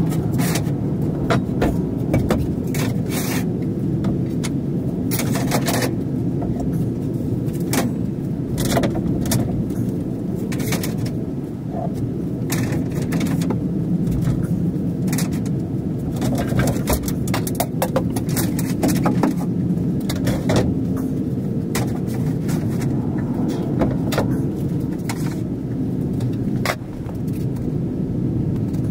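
Steady low hum with frequent short knocks, clicks and scrapes of hand work on the wooden wall framing.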